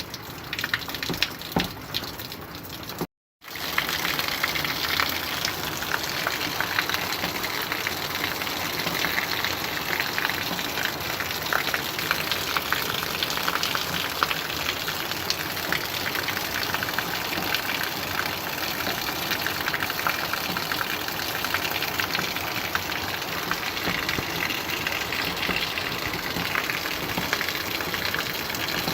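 Rain falling, a dense, steady hiss of water. About three seconds in, the sound cuts out for a moment. Before the cut, separate drops and taps stand out; after it, the downpour runs on evenly.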